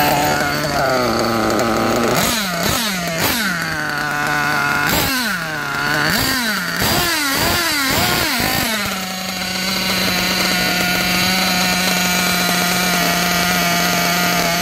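Small glow-fuel two-stroke engine of a nitro RC buggy revved in a string of quick throttle blips, each a sharp rise and fall in pitch, for about the first nine seconds. It then settles into a steady idle.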